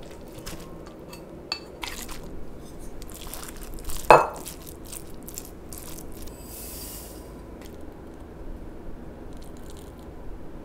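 Raw ground meat being scraped off a plate into a glass mixing bowl and worked with a wooden spatula: soft squishing with a series of knocks and clinks against the glass, the loudest a sharp ringing clink about four seconds in. A short hiss follows a few seconds later.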